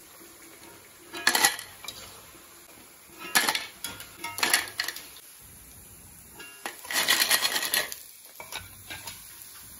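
Metal clatter of a steel skimmer and freshly fried snacks against an aluminium strainer bowl as the snacks are tipped in. It comes in three short bursts and then a longer rattle about seven seconds in.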